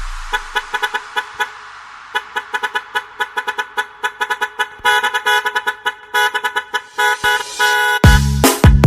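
Truck air horn sample tooting in short, rapid rhythmic blasts as the break of an electronic dance remix. The heavy bass beat comes back in near the end.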